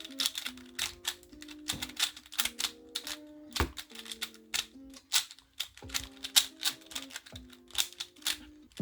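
Rubik's cube turning clicks, irregular and several a second, from a speed cube set to uneven, very stiff tensions being forced through a solve. Background music with a simple melody plays underneath.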